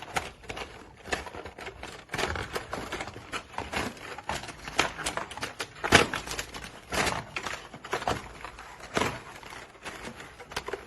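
Hands handling a toy RC car and its box packaging during unboxing: irregular clicks, knocks and rustles of plastic and cardboard, the loudest knock about six seconds in.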